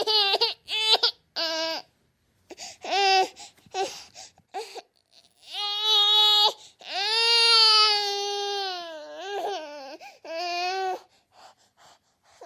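A baby crying: a few short cries, then longer drawn-out wails about six seconds in, the longest slowly falling in pitch, and one more shorter cry near the end.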